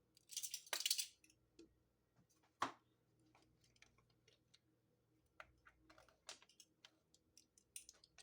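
Small clicks and taps of a measuring spoon and spice jar while dried oregano is measured out, with a brief rustle about half a second in and a sharper click a little later.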